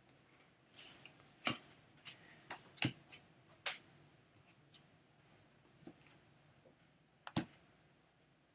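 Faint, irregular clicks and taps of stiff chromium-stock baseball cards being handled and flipped one behind another in the hands. About ten short clicks, a few sharper than the rest.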